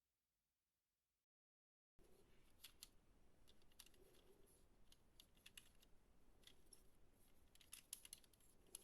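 After about two seconds of silence, faint scattered clicks and taps of small objects being handled, typical of unboxing diecast toy cars.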